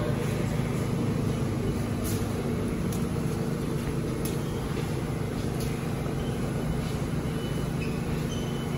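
Steady low hum of a New York City subway train standing in the station with its doors open, its onboard equipment running, with a few faint clicks over it.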